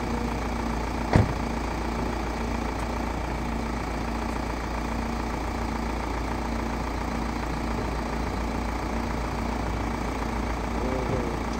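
Vehicle engine idling steadily with a low hum, and one sharp click about a second in.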